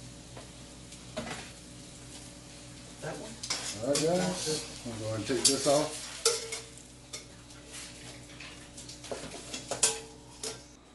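Spatula scraping and clinking against a wok as scrambled eggs are stirred and scraped out of the pan, with sharp clacks scattered throughout and the busiest stretch near the middle.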